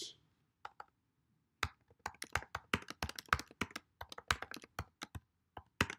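Typing on a computer keyboard: two lone key clicks, then a steady, uneven run of keystrokes from about a second and a half in.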